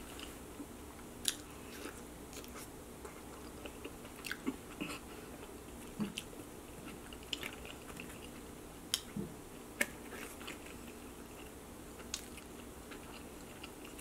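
Close-miked chewing of a mouthful of pizza and tomato: irregular wet mouth clicks and smacks, a dozen or so spread unevenly, over a faint steady room hum.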